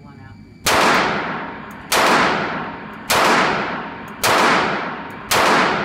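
Five handgun shots fired about a second apart, each with a long echo in an indoor shooting range.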